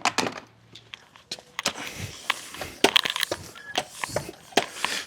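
Irregular clicks and knocks with short bursts of hissy rustling, from hands working with a bicycle wheel.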